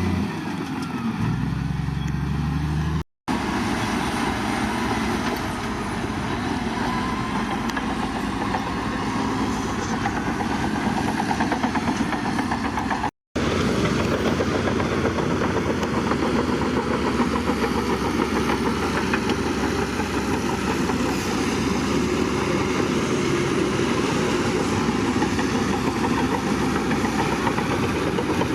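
Heavy diesel construction machinery, a bulldozer and dump trucks, running steadily under load. The sound cuts abruptly twice, at about 3 and 13 seconds in, between clips.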